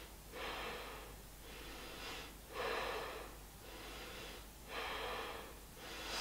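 A woman breathing audibly in short, hissing breaths, about one a second, while holding the upward plank pose (Purvottanasana) with effort.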